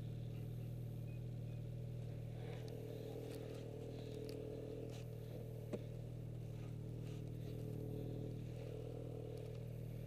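Snowmobile engine idling steadily, with a single sharp click a little past halfway.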